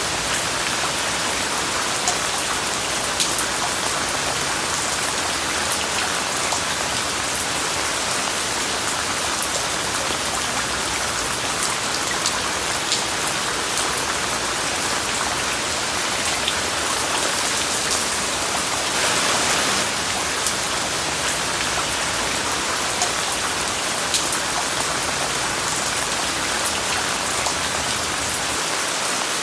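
Steady rain falling on surfaces, with scattered individual drop ticks, blended with a constant white-noise hiss.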